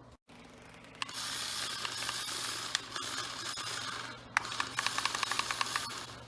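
Toy RC car's small electric motor and gearbox whirring as it drives, starting about a second in. After a short break about four seconds in, it runs on with a rapid, even clicking.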